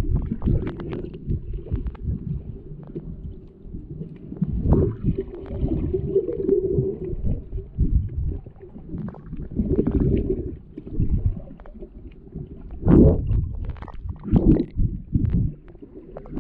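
Muffled underwater rumbling and sloshing from water moving around a submerged camera, rising and falling irregularly, with a few short clicks and stronger surges about 13 and 14 seconds in.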